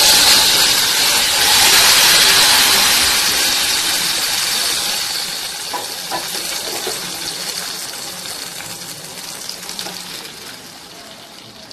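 Hot oil tempered with nigella seeds and cumin (a tadka) hitting a pot of potato-and-chickpea curry, sizzling loudly with a hiss that fades slowly over the following seconds.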